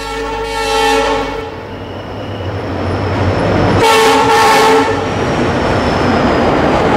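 Locomotive horn sounding two blasts, the first at the start and a second about four seconds in, over the continuous rumble of a passenger train rolling past.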